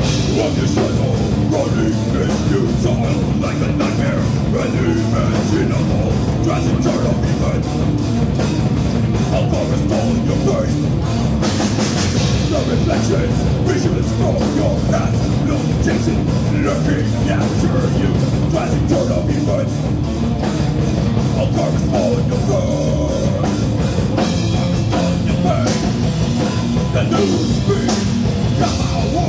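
Heavy metal band playing live: distorted electric guitars, bass and drum kit, loud and dense, with fast, even drum strokes. A brighter wash of cymbals comes in about twelve seconds in.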